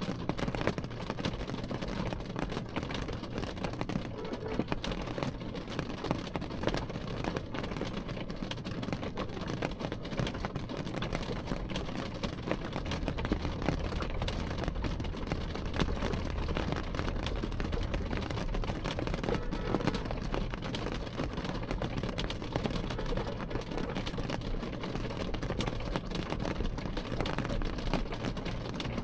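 Rain falling on window glass: a dense, steady patter of drops over a low rumble, which swells for a few seconds about halfway through.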